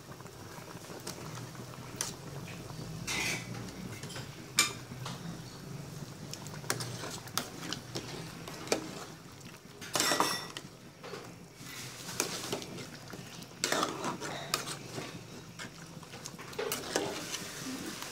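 A metal utensil clinking and knocking against a metal cooking pot of boiling soup as fish pieces are added and stirred in, with louder clatters about 3, 10 and 14 seconds in.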